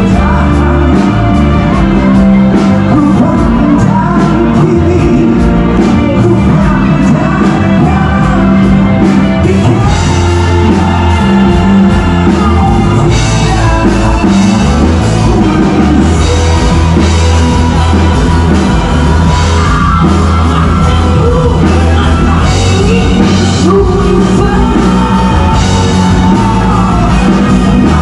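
Live rock band playing loud amplified music with a male singer, heavy bass and drums.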